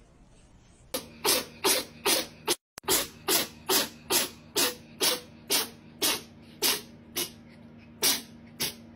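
A cat making a quick run of short, breathy sounds, about two a second, with a brief break in the third second.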